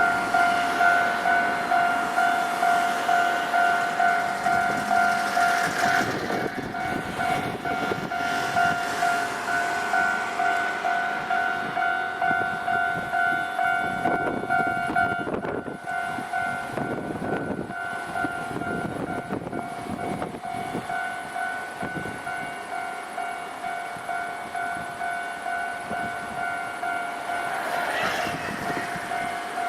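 Japanese level-crossing warning bell ringing in a fast, steady repeating ding. A train rumbles and clatters through the crossing about halfway through.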